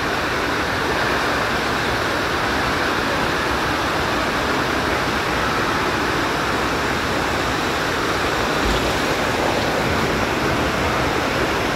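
Steady rushing of falling water as an artificial rock waterfall and a water slide's flow pour into a pool.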